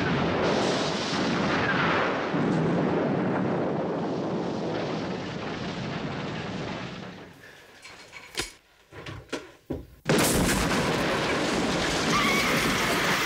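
Film explosion sound effects: a heavy blast with flying debris, loud and dense for about seven seconds, dying away into a few scattered knocks and clatters. A second loud explosion hits about ten seconds in.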